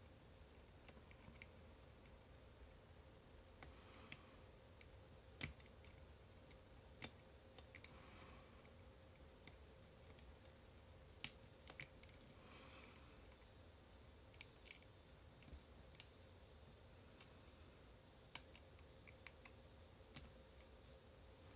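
Faint, irregular clicks of a lock pick and tension tool working the slider-and-sidebar core of an On Guard bicycle U-lock, with a sharper click about eleven seconds in.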